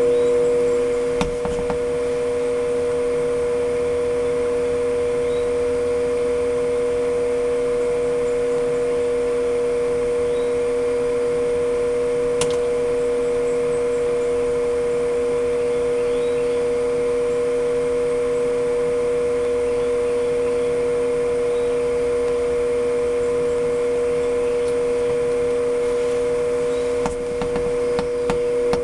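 Steady electric hum of an egg incubator's running motor, one constant tone with weaker tones around it, with a few faint clicks about a second in and near the end.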